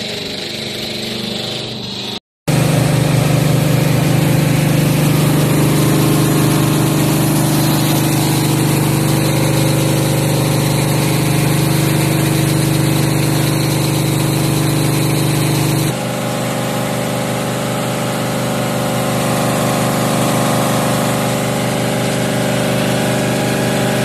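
Machinery of a twin-screw extruder line for fortified rice kernels running with a loud, steady, pitched hum. It starts abruptly after a brief gap about two seconds in. About sixteen seconds in it changes to a slightly quieter hum of a different tone.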